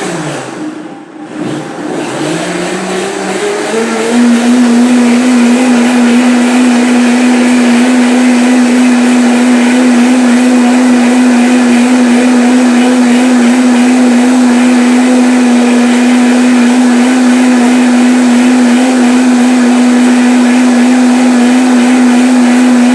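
Electric blender blending sorrel and water: the motor dips near the start, climbs up to speed over a couple of seconds, then runs at a steady pitch.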